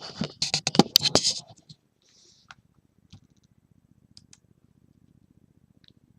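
Crinkling and clicking of trading-card packs and cards being handled, a dense burst in the first second and a half, then a few scattered light clicks.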